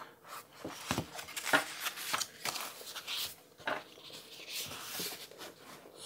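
A titanium pen and a paper notebook being handled: a scatter of light clicks and knocks mixed with short scratchy paper rustles.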